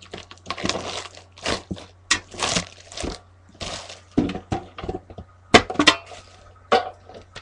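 Plastic packaging crinkling and crackling as a metal card tin is unwrapped and opened, in a run of short rustling bursts, with a few sharp, loud clicks a little past the middle.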